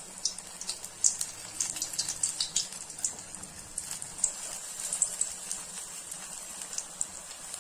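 Batter-coated green chillies (mirchi bajji) deep-frying in hot oil: a steady sizzle with many small, irregular high-pitched crackles and pops.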